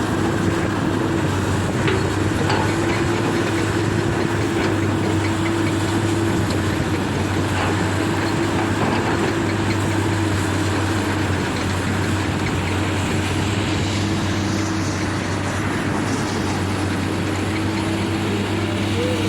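Komatsu heavy-equipment diesel engine running steadily, with an even low hum and a constant higher drone.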